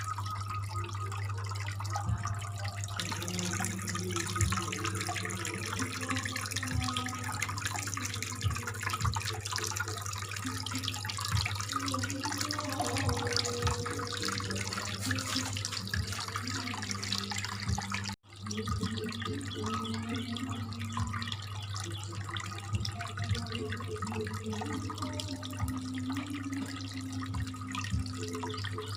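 Water trickling and splashing in a small homemade cement fountain, over a steady low hum from its mini water pump. The sound cuts out for a moment about 18 seconds in.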